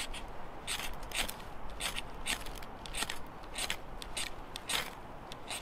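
A ferrocerium fire steel being scraped with its striker: about nine quick, rasping strokes, a little under two a second, showering sparks onto wood-shaving tinder. It is a cheap, short rod that he finds too short to get a good stroke on.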